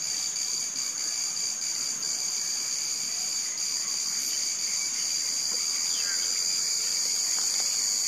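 Steady, high-pitched insect chorus, an unbroken shrill drone.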